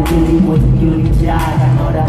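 Live pop music played loud over an arena sound system, with heavy bass, held chords and a sung vocal line. A sharp percussive hit lands right at the start.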